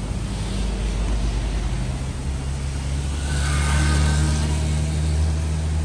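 A vehicle's engine or motor running with a low hum that rises in pitch and grows louder about halfway through as it picks up speed.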